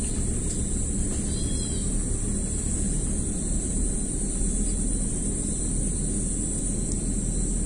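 Steady outdoor ambience: a constant high-pitched insect drone over a low rumble, with one short chirp about one and a half seconds in.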